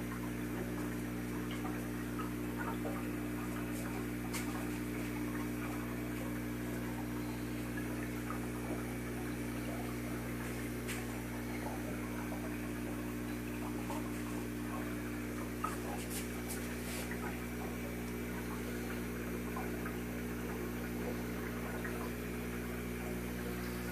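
Steady hum from an aquarium air pump with the fine bubbling of its sponge filter, and a few soft clicks.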